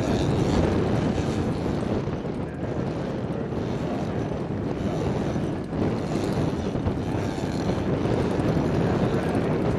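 Engine of a large-scale aerobatic RC model plane running during low, slow 3D manoeuvres, its note rising and falling a little with the throttle. Wind buffets the microphone throughout.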